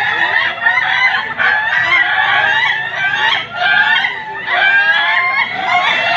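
Several ayam ketawa (Sulawesi laughing chicken) roosters crowing at once, their crows overlapping without a break. Each crow is chopped into quick stepped notes, the laugh-like rhythm the breed is judged on.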